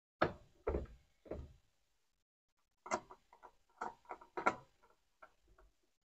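Hard plastic knocks and clicks as a top-load washing machine's plastic control panel is handled and pressed into its slots: three separate knocks, then after a short pause a quicker run of clicks and taps.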